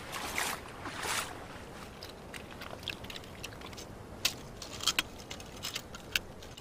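Oyster shucking: a knife prying and scraping at an oyster shell, giving a run of sharp clicks and clinks of shell on shell from about two seconds in. Two soft splashy swishes come in the first second.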